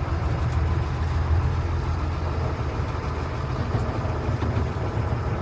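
Heavy military truck's diesel engine running steadily with a deep drone.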